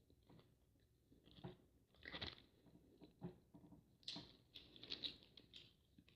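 Faint close-up chewing of food with soft crunches, coming in short irregular bursts.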